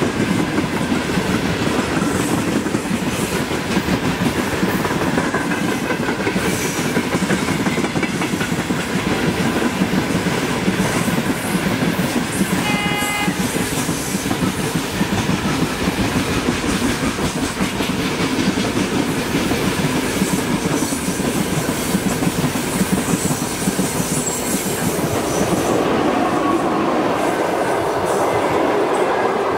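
Passenger train hauled by an EP2K electric locomotive running past, wheels clattering steadily over the rail joints. A brief high-pitched tone sounds about halfway through.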